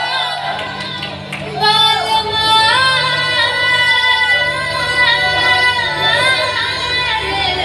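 Recorded music with a woman singing; after a short dip about a second in, she holds long, wavering notes.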